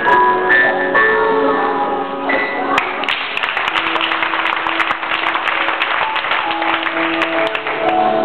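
Background music with sustained notes, joined about three seconds in by applause, a dense wash of clapping that goes on over the music.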